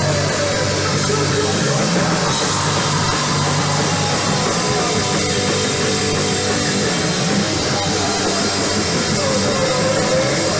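Live rock band playing loud, fast, punk-style music with a full drum kit.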